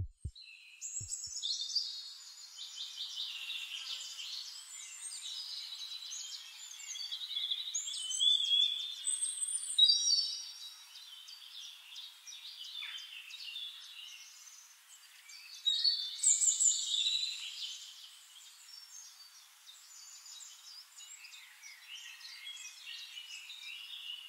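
Songbirds chirping and trilling: many quick, high-pitched, overlapping calls, with louder stretches near the middle and again about two-thirds of the way through.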